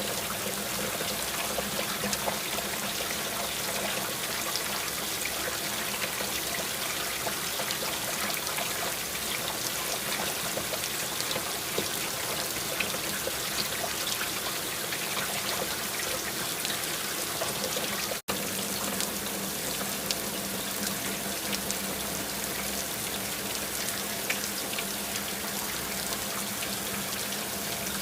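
Steady running, trickling water with faint scattered drips, over a steady low hum. It breaks off for an instant about two-thirds of the way through, then carries on unchanged.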